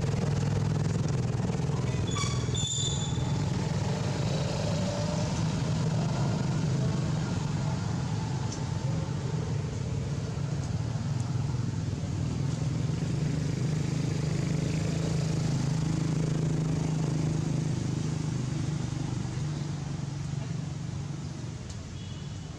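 A steady low engine drone, like a motor vehicle running nearby, with a few faint short high chirps about two to three seconds in.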